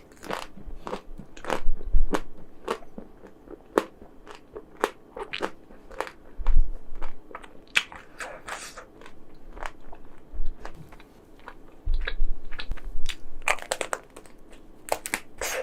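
Close-miked mouth sounds of eating chocolate-coated ice cream: bites and chewing with many irregular crisp crunching clicks as the frozen chocolate coating breaks.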